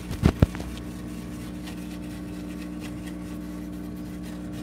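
Two sharp bumps near the start as a fur-covered microphone is handled and clipped onto its stand, over a steady motor hum.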